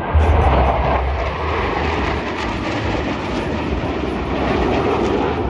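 Loud roar of Blue Angels F/A-18 Super Hornet jets flying low overhead, a deep rumble that comes in sharply just after the start and holds steady.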